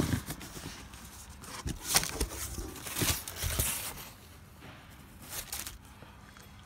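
Cardboard carton being handled and opened by hand, with rustling of the plastic wrapping around the cushions inside. Irregular scrapes and crinkles, loudest about two and three seconds in, then quieter.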